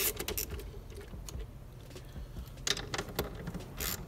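Scattered light clicks and taps of a wrench working the 10 mm nuts on a car battery's terminal clamps, a few near the start and more from about two and a half seconds in.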